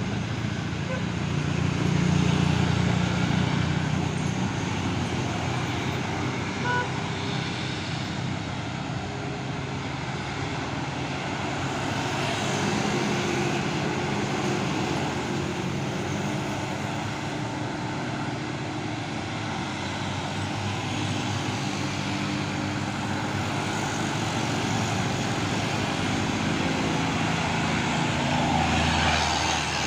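Heavy diesel trucks labouring up a steep climb, a steady low engine drone that swells and eases as they pass, over road traffic noise.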